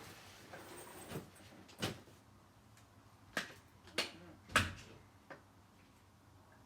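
Handling noises: light rustling at first, then five separate sharp clicks and knocks spread over a few seconds, the fourth the loudest.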